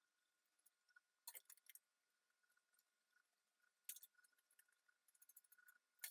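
Near silence, with a few faint clicks and taps: a small cluster about a second and a half in, another near four seconds, and one at the very end.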